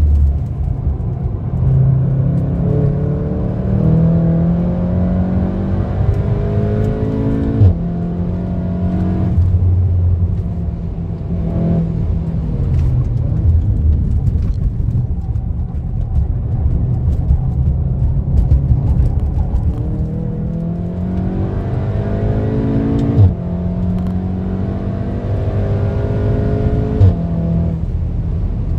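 Stage-2-tuned 2.0-litre turbocharged four-cylinder of a Volkswagen Golf 7.5 R with a Milltek downpipe, under hard acceleration. The revs climb and then drop back several times as the DSG gearbox upshifts, and each shift is marked by a brief pop.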